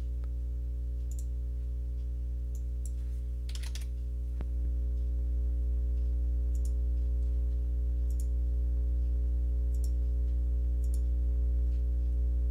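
Scattered computer mouse clicks and a few keystrokes over a steady low electrical hum, which is the loudest sound throughout.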